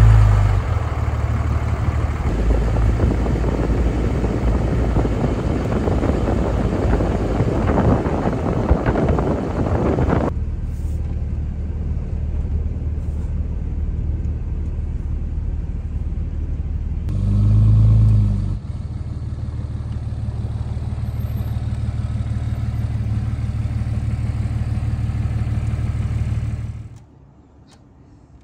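Pickup truck driving on an icy, snow-packed road: steady engine drone with tyre and road noise, loud and close to the front wheel for about the first ten seconds, then heard from inside the cab. The engine swells briefly about eighteen seconds in, and the sound cuts off suddenly near the end.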